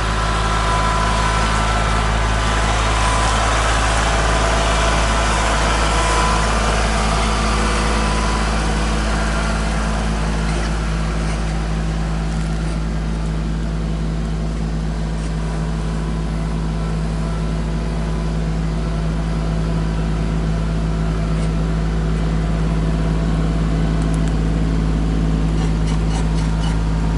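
Kubota compact tractor's diesel engine running steadily. It is louder and harsher for the first several seconds, then settles to a steadier, slightly quieter note.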